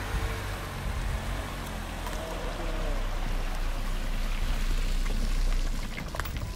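Water pouring and dripping off a boat trailer as an SUV pulls it up the launch ramp out of the water, over the SUV's low engine rumble. The rumble builds to its loudest about five seconds in.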